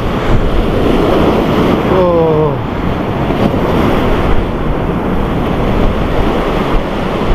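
Sea waves breaking and washing over shoreline rocks, a steady loud rush of surf mixed with wind buffeting the microphone.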